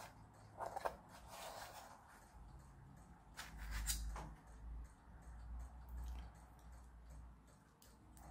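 Light clicks and taps of thin 3D-printed plastic puzzle pieces being picked up and handled on a wooden board, with a few sharper clicks about a second in and again between three and four seconds in.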